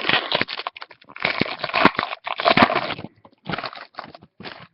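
Crinkling and rustling of trading-card pack wrappers and cards being handled, in irregular crackly bursts with short pauses between.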